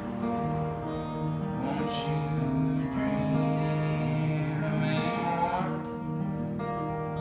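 Solo acoustic guitar playing, chords ringing out and changing every second or two.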